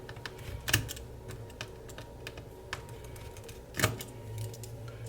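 Small metallic clicks and taps of a precision screwdriver working out the tiny screws of a MacBook Pro's screen-cable bracket, with two sharper clicks, one just under a second in and one near four seconds.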